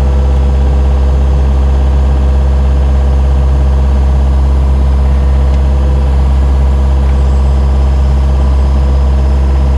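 An engine idling steadily, a loud, unchanging deep hum.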